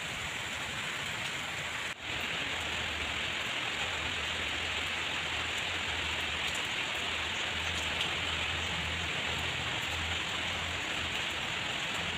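Steady rain falling on leaves, wet concrete and roofs, an even hiss with a brief dip about two seconds in.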